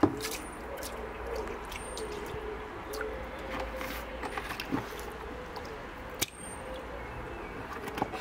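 Quiet outdoor background with a faint wavering hum, scattered light clicks and drips, and a few very short high chirps.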